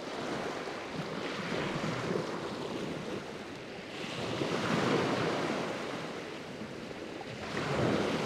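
Surf on a rocky beach, swelling and falling back in about three surges, with some wind.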